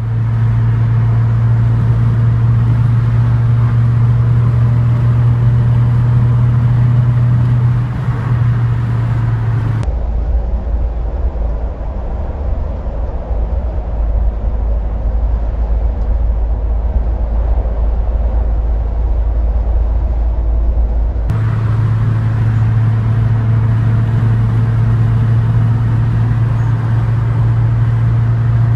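Steady engine drone and tyre noise heard from inside a car cruising on a motorway. About ten seconds in the sound changes to a deeper rumble with less hiss, and about twenty-one seconds in the steady drone returns.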